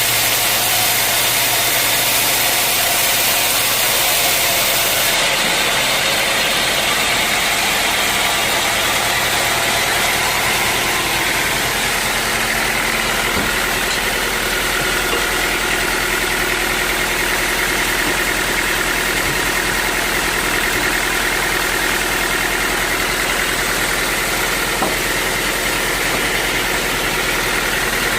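Sawmill machinery running steadily: a constant engine-like hum with a dense hiss over it, which changes slightly in tone about five seconds in.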